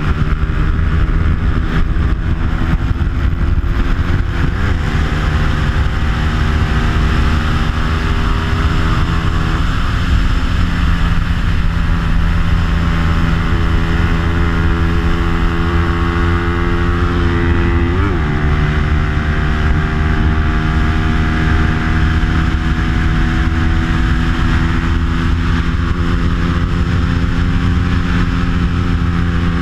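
Bajaj Pulsar 200's single-cylinder four-stroke engine, stock but fitted with an aftermarket exhaust, running hard at racing speed. The note holds nearly steady with three brief breaks, under a rush of wind over the onboard microphone.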